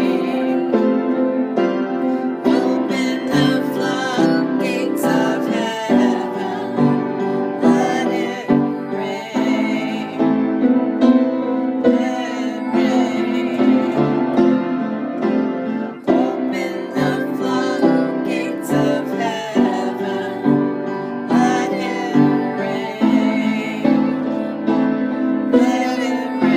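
Music led by piano, playing continuously.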